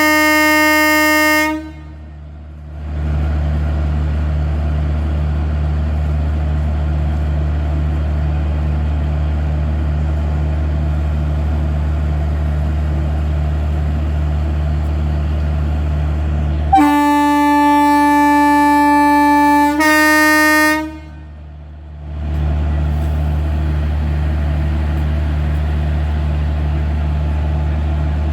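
WAP4 electric locomotive's twin-tone horn. A blast ends about a second and a half in, and a second blast of about four seconds comes later, stepping up to its second, slightly higher tone near the end. Between and after the blasts there is a steady low hum.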